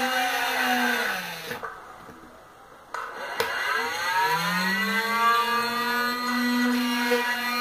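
Small 12-volt DC motor of a homemade mini drill press running with a steady whine. About a second in it winds down and stops. After a couple of clicks it spins back up to full speed over about a second and a half.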